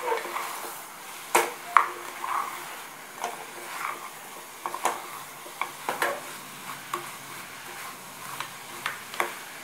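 A spoon stirring chicken pieces and spice powders in an aluminium pressure cooker pot, with irregular clinks and scrapes against the pot. Under them runs a steady frying sizzle.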